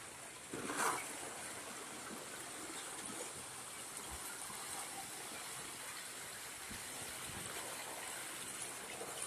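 River ice floes drifting during the spring breakup: a steady rushing hiss of moving ice and water, with a louder crack of ice about a second in and a few faint knocks of ice against the bank later.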